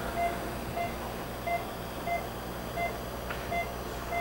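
Patient monitor's pulse oximeter beeping, short tones of one steady pitch about every two-thirds of a second, one beep per heartbeat at roughly 90 a minute, over a low room hum.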